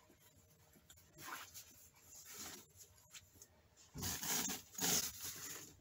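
Hands sweeping and smoothing a bed sheet, the fabric swishing in a few short strokes, the loudest two about four and five seconds in.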